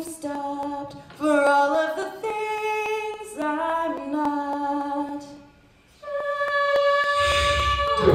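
A cappella group singing: a female lead over close backing harmonies in short phrases, a brief pause about five and a half seconds in, then a held chord. Near the end a deep bass part and a hissing swell come in.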